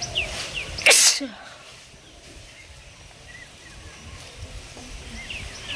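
A woman sneezes once, sharply, about a second in, a sneeze brought on by tickling the inside of her nose. Small birds chirp in the background at the start and again near the end.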